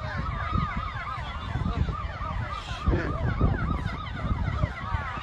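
Several emergency-vehicle sirens sounding at once in a fast up-and-down yelp, their wails overlapping, over a steady low rumble.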